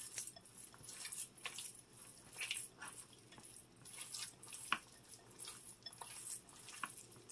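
Bare hands squishing and kneading a wet mixture of raw ground beef, egg and tomato soup in a glass bowl: faint, irregular squelches and smacks.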